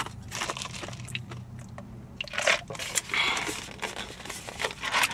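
Irregular crinkling and rustling from handling a plastic iced-drink cup, over a low steady hum.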